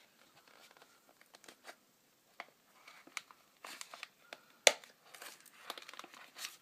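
Fingers picking at the pull tab and flaps of a small cardboard product box: light scratching and crinkling of card with scattered clicks, busier in the second half, and one sharp click or snap about two-thirds of the way through.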